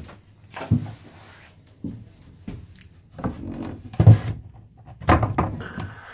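Wooden locker lid of a boat's cabin settee being lifted and handled: a series of wooden knocks and scrapes, the loudest about four seconds in.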